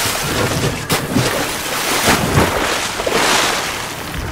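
Storm-at-sea sound effects: wind and crashing waves around a ship, with a sharp crash about a second in.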